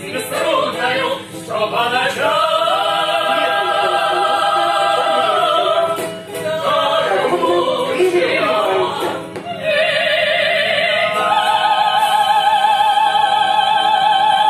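Several voices singing unaccompanied in an operatic style, with long held notes and strong vibrato, building to one long high held note near the end.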